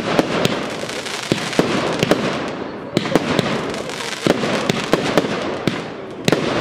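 Aerial fireworks display: shells bursting in an irregular series of sharp bangs, about a dozen, over a dense crackling hiss from the falling stars. The loudest bangs come past the middle and near the end.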